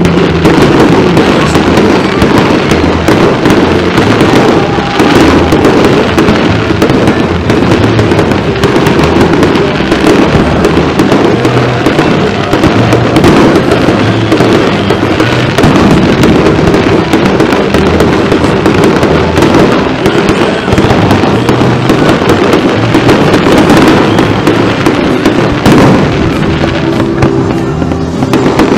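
Aerial fireworks display going off continuously: a loud, dense run of booms and crackling bursts with no pause.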